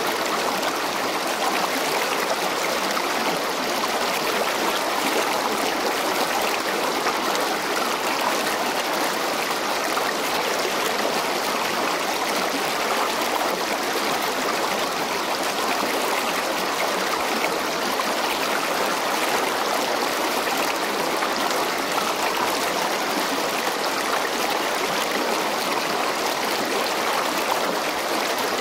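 Steady rushing noise of running water, even and unchanging.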